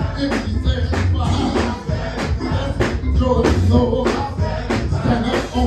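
Live gospel music: a band with drums and bass playing a steady upbeat beat, with singing and the congregation clapping along.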